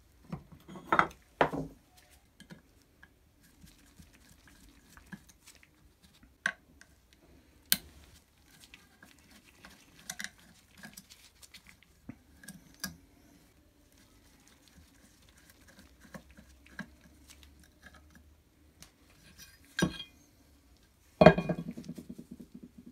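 Metal parts of a vintage electric drill being handled on a wooden bench: scattered clinks, knocks and light scraping as the nameplate is pried off the aluminium housing, with a louder rattling clatter near the end.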